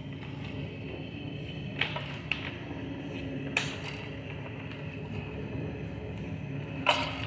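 A steady low machine hum from the drain-clearing equipment, with four short, sharp knocks as the orange hose is worked down the drain pipe. The loudest knock comes near the end.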